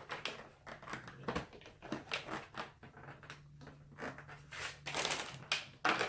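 Packaging of a makeup palette kit handled and pulled open by hand: an irregular run of rustles, light clicks and taps.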